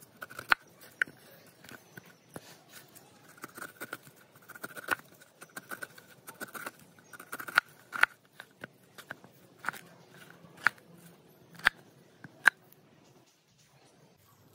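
Knife cutting through pineapple rind and flesh on a wooden board: crisp, crunchy cuts broken by a string of sharp clicks from the blade.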